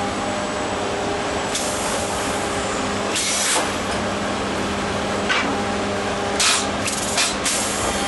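AGREX Sharp & Kögel sawmill board-handling line running, with a steady hum from its electric conveyor motors. Several short hisses of compressed air from the pneumatic gear cut in over it: the longest about three seconds in, and a quick cluster near the end.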